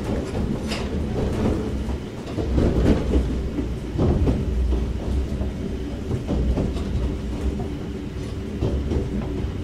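Inside a KuMoHa 61 old-type electric railcar working hard up a climbing gradient: a steady motor and gear hum over the rumble of the wheels, with scattered knocks from the rails.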